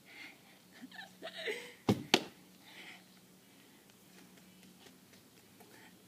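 Two sharp knocks in quick succession about two seconds in, amid faint breathy sounds.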